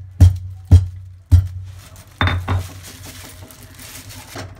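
Metal kitchen utensils and cookware clanking: three sharp knocks about half a second apart, then two more in quick succession about two seconds in, one with a brief metallic ring.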